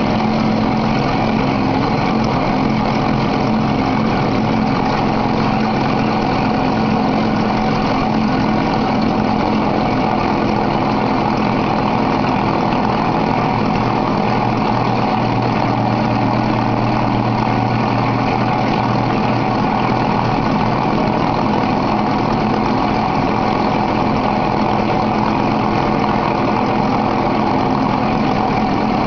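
Glass grinding machine running steadily: a motor hum with a steady tone over the grinding noise of the rotating grinding plate. A deeper hum comes in for several seconds midway.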